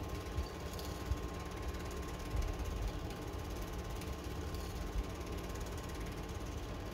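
Cine film projector running steadily: an even mechanical whirr with a fast, regular rattle from the film-transport mechanism and a faint steady tone.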